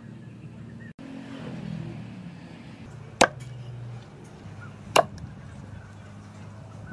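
Axe head striking into a rotten wooden stump twice, two sharp chops about two seconds apart.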